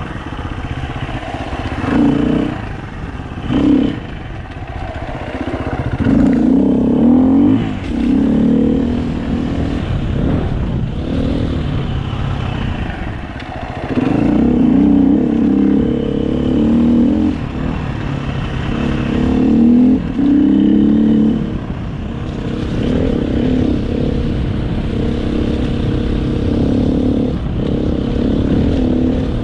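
Dirt bike engine under way on a trail, the throttle opening and closing, with several louder bursts of acceleration between quieter stretches, heard from a helmet-mounted camera.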